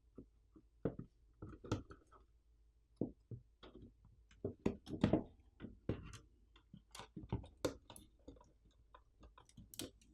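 Irregular clicks and light knocks of small computer parts being handled and set down: a mini PC's circuit board, cables and plastic housing pieces. The sounds are loudest around the middle.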